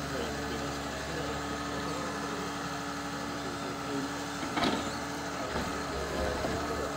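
Rottne F15E forwarder's diesel engine running steadily while its hydraulic crane works, with a single clunk about four and a half seconds in.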